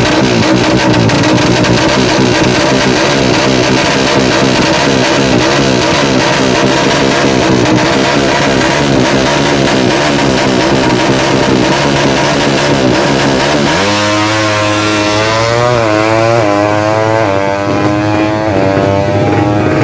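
Tuned FU 200cc drag-bike motorcycle engines running loud at high revs. About two-thirds of the way through, one engine stands out and climbs in pitch several times over, like a bike accelerating hard through its gears.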